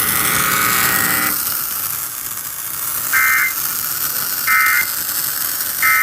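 Emergency Alert System end-of-message data bursts: three short, identical two-tone digital warbles about a second and a half apart, marking the end of the flash flood warning broadcast. A steady buzzing tone sounds for about the first second before them.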